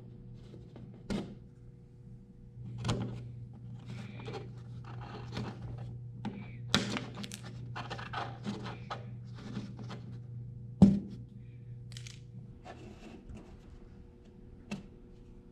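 Hand-handling noise from a small white trim piece being worked against wooden siding: scattered rustles, scrapes and light knocks, with one sharp knock about eleven seconds in.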